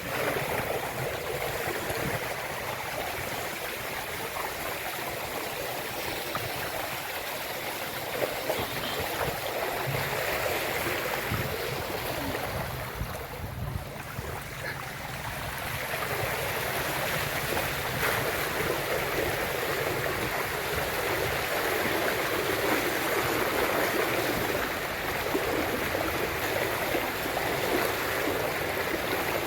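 Floodwater rushing steadily, with a brief dip about halfway and a fuller sound in the second half.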